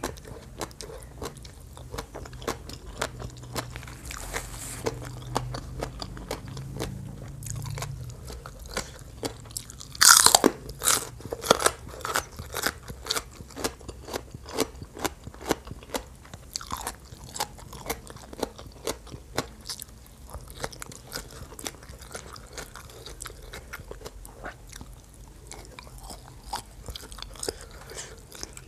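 Close-miked chewing of a mouthful of crunchy Thai papaya salad, steady moist crunches. A louder run of crunching comes about ten seconds in.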